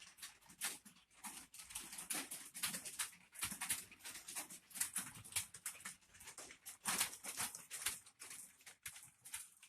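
Computer keyboard keys clicking in fast, irregular runs as someone types continuously.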